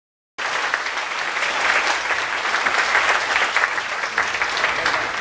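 Audience applauding, starting abruptly just under half a second in.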